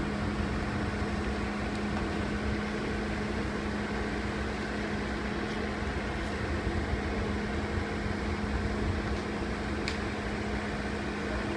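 Steady machinery hum with one constant low tone: the power units of the self-propelled modular transporters running as they move the galleon's hull under load.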